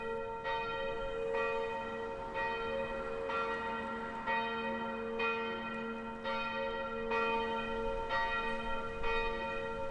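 Church bell tolling steadily, about one stroke a second, each stroke's hum still ringing when the next one falls.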